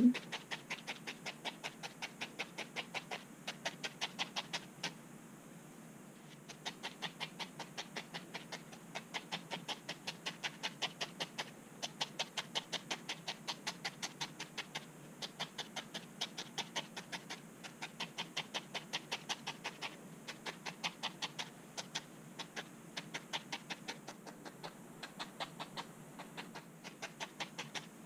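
Barbed felting needle stabbing rapidly into wool roving wrapped over a foam ball, felting the wool down onto the foam core. It makes a soft, scratchy crunch about five times a second, in long runs broken by a few short pauses.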